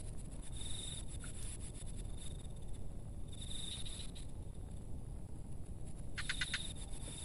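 Insects chirping in short, high, pulsed trills of under a second each, three or four times, over a steady low outdoor rumble.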